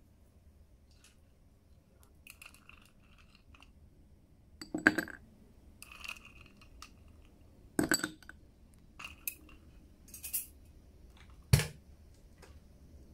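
Ice cubes dropped into a glass tumbler: three loud, sharp clinks about three seconds apart, with lighter clinks and taps of ice against glass between them.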